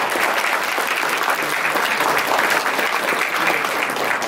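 Audience applauding steadily: dense, continuous clapping from a crowd.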